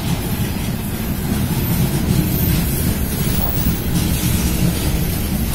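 Freight train wagons rolling past: a steady, fairly loud rumble of wheels on rails.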